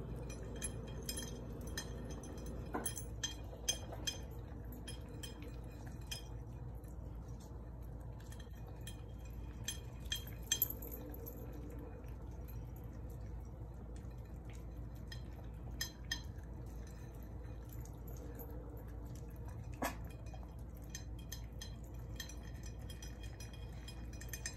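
Yorkshire terriers eating together from one bowl: wet, sloppy mouth sounds and many small clicks and clinks against the bowl, with a few louder clinks scattered through.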